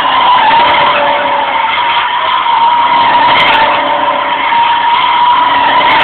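Subaru WRX STI's tires screeching in one long, steady squeal as the car spins donuts, with the engine running at high revs underneath.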